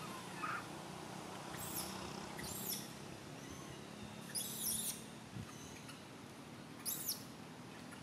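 Baby macaque giving short, high-pitched squeals, five or six of them a second or so apart, with two close together near the end.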